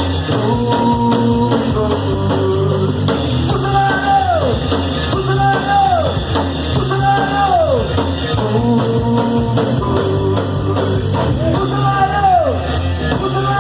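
Live rock band playing an instrumental stretch of a song: drum kit and electric guitar, with a falling melodic figure that repeats about every one and a half seconds.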